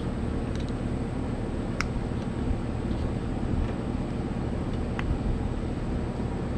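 A steady low background rumble, with two light clicks of a hand tool on a spark plug of the Ford 8N's engine, about two seconds in and again about five seconds in.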